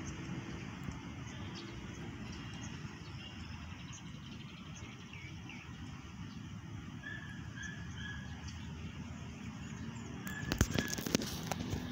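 Outdoor ambience: birds chirping over a steady low rumble, with three short repeated notes about two-thirds of the way through. Sharp clicks and knocks start about ten and a half seconds in and are the loudest part.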